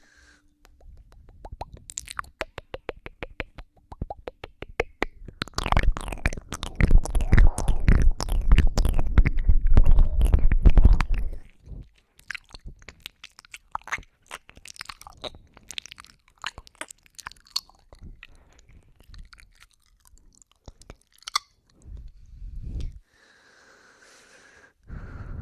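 Close-miked wet mouth sounds on a binaural microphone: ear-nibbling, kissing and sucking clicks and smacks. A louder, denser stretch runs from about six to eleven seconds in, then the clicks thin out.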